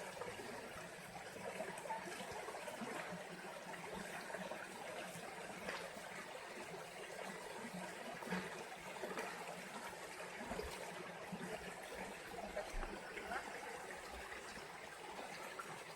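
A stream of running water, a steady, faint trickling and gurgling.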